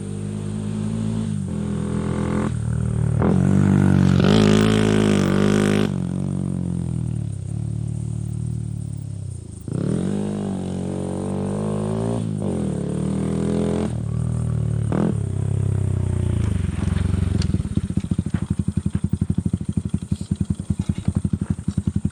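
Honda SL70 single-cylinder four-stroke motorcycle engine revved in a series of throttle blips, the longest and loudest a few seconds in, then settling into an even, pulsing putt-putt for the last few seconds.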